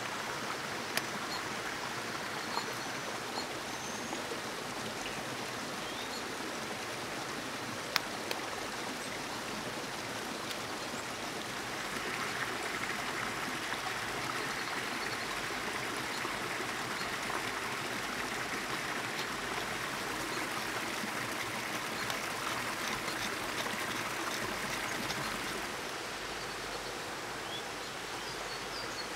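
Steady rushing of a forest stream. A few sharp clicks come in the first several seconds, and faint short bird chirps are heard now and then. The rushing grows a little louder and brighter for a stretch in the middle.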